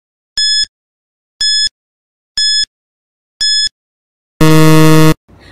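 Countdown timer sound effect: a short high beep once a second, four times, then a longer, louder, lower buzzer when the count reaches zero.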